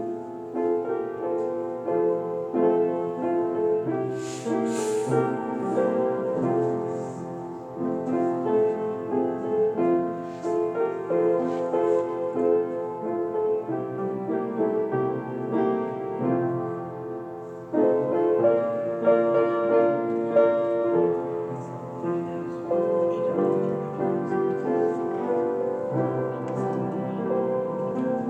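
Piano playing a reflective hymn-style piece of chords and melody, accompanying a period of silent meditation.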